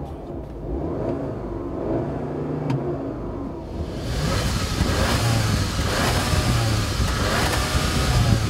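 2015 Audi A3's 1.8-liter turbocharged four-cylinder engine revving while parked. From about four seconds in it is heard at the twin exhaust tips, louder and hissier.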